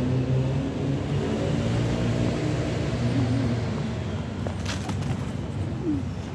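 Steady low engine rumble of road traffic running throughout, with a few sharp taps about four and a half seconds in.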